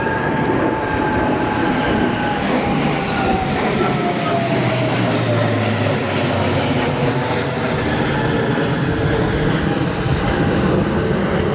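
Red Arrows BAE Hawk jets flying past overhead: a loud jet rush with an engine whine that falls steadily in pitch as they pass.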